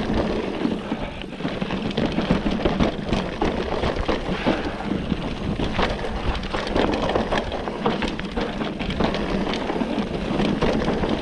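Orbea Laufey mountain bike descending a dry dirt forest trail: constant tyre noise over dirt and leaf litter, with frequent knocks and rattles from the bike over the bumps. A low rumble of wind on the camera microphone runs underneath.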